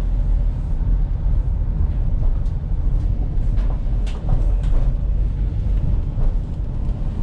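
Turbocharged van driving, heard from inside the cab: a steady low engine and road rumble, with a few light rattles and knocks.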